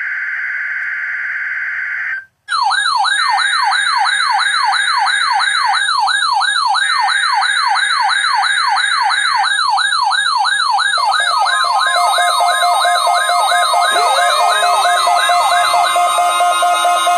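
A weather radio SAME data burst, a steady buzzing tone for about two seconds, then the receivers' alarms sound: a loud warbling tone sweeping up and down about three times a second, with two more data bursts under it. More receivers join with steady and gliding alarm tones about 11 and 14 seconds in, all set off by the weekly test signal.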